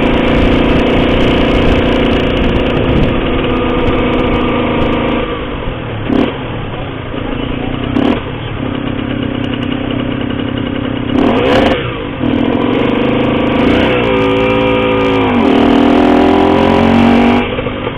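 Cagiva Mito 125's two-stroke single-cylinder engine running through an Arrow exhaust on the move, holding a fairly steady high note, with a few short bursts of noise. About three quarters of the way through the revs fall and then climb again.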